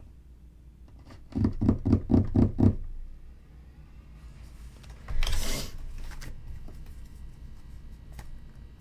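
A short, low vocal murmur without words, then a brief rustle of tarot cards being moved about five seconds in, with a few light taps near the end.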